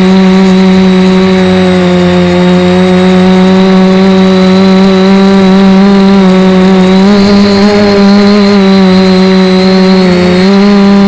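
Multirotor drone's electric motors and propellers humming steadily at close range, heard through its onboard camera, with the pitch wavering slightly about two-thirds of the way through and dipping briefly near the end as the drone adjusts its hover.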